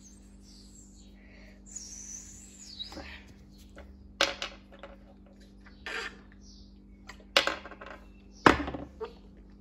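A steady low hum with a handful of sharp knocks and clicks scattered through it; the two loudest come near the end, about a second apart.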